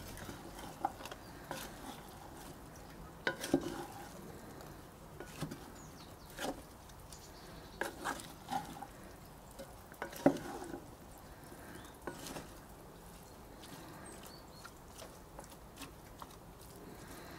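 A wooden spatula stirring chunky stew ingredients in a cast-iron Dutch oven, with irregular knocks and scrapes against the pot. Most come in the first twelve seconds, then they grow fewer.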